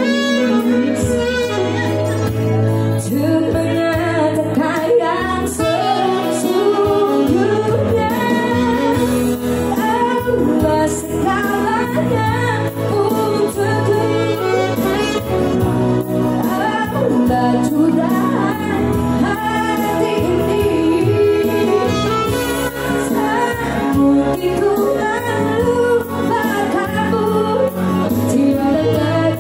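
Live band music: a woman singing a slow song into a microphone over an electronic arranger keyboard, with a saxophone playing alongside.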